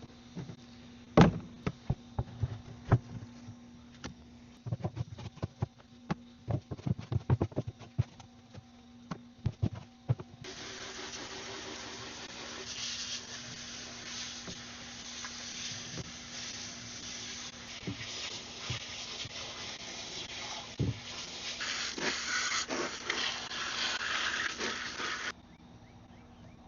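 Knocks and clatter as a mud-filled container is handled, then a steady hissing spray of water rinsing the mud out of it, starting suddenly about ten seconds in and cutting off sharply near the end.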